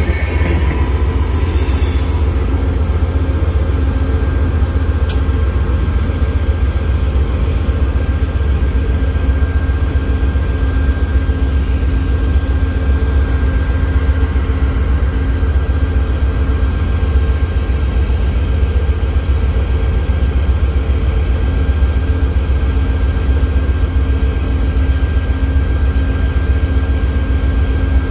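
Freight train rolling past: a steady, heavy low rumble with a faint steady whine over it.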